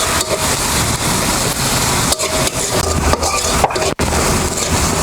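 Chopped onion and slit green chillies frying in hot oil, a steady sizzle broken by knocks and scrapes of a spatula stirring in the pan.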